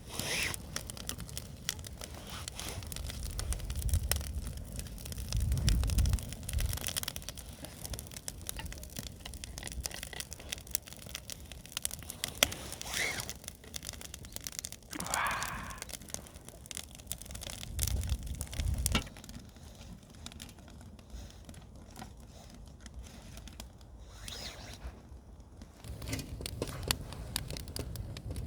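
Wood fire crackling with scattered pops, mixed with rustling and crinkling, and a few low rumbles.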